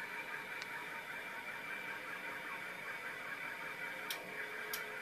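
Steady high-pitched whine of a scratch-built CNC mill's servo motors and drives during axis homing. A lower steady hum joins about four seconds in, and there are two short clicks near the end.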